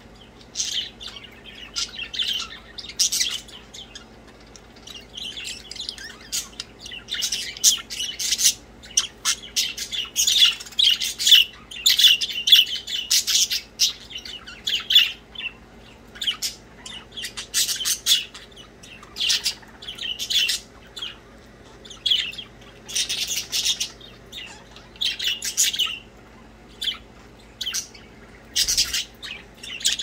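Pet budgerigars chirping in quick, high runs of chatter, with short pauses between runs. The chatter is busiest about a third of the way in and again later on.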